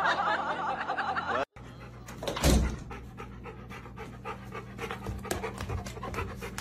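A dog panting in quick, even breaths, with a low thump shortly after the panting begins. Music plays before it and cuts off about a second and a half in.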